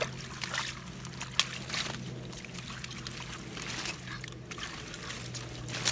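Shallow muddy water sloshing and splashing, with scattered rustling clicks as hands pull water hyacinth out of a cast net, over a steady low hum.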